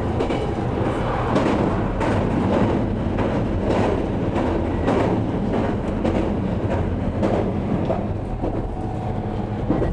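JR Kyushu 813 series electric train running, heard from inside the car: a steady rumble of wheels on rail with repeated clacks as it crosses a steel truss bridge.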